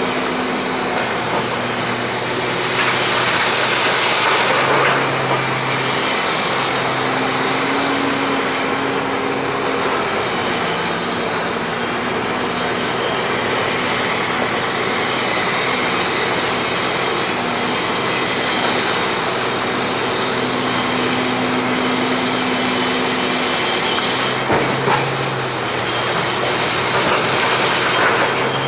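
Large hydraulic excavator's diesel engine running, its note stepping up and down as the load changes, with a rushing hiss about three seconds in and again near the end.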